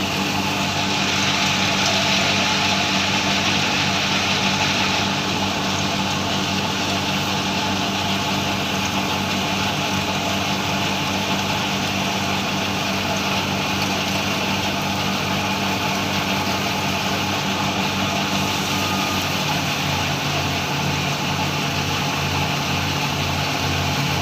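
Heavy farm machinery engine running steadily, with a louder rushing hiss for the first few seconds. A low throb of about three beats a second comes in near the end.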